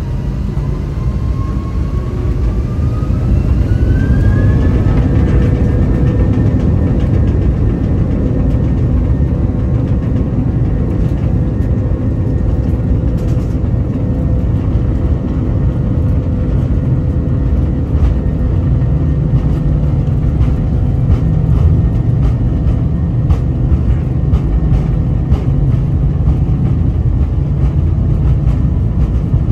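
Jet airliner engines heard from inside the cabin, spooling up: a whine climbs in pitch and the sound grows louder over the first few seconds, then holds a steady whine over a heavy low rumble.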